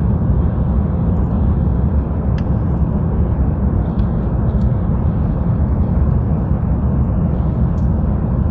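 Steady low rumble inside the cabin of an Airbus A350-900 on approach, from airflow and its Rolls-Royce Trent XWB engines, with a few faint clicks.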